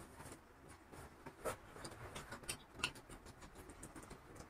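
Faint eating sounds of vada pav being chewed, with a few small mouth clicks and smacks.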